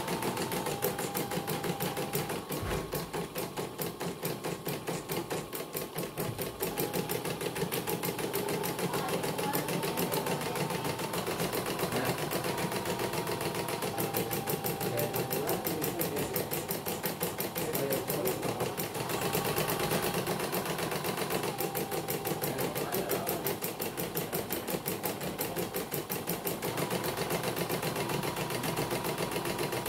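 CNY portable computerized embroidery machine stitching a design, its needle bar making a rapid, even clatter of stitches. The covers are off, so the mechanism is exposed.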